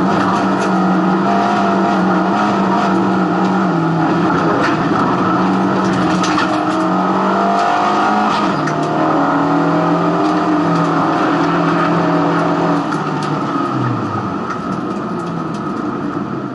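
Race car engine running hard, heard from inside the stripped cabin. Its note holds fairly steady, stepping up and down in pitch, with rattles and knocks from the cabin over it. Near the end the note drops lower and fades away.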